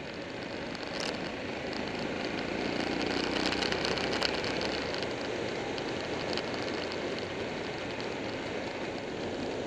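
Buell 1125R motorcycle riding at road speed: a steady rush of wind and road noise over the microphone with the engine underneath. It swells a little around three to four seconds in, with a few short crackles.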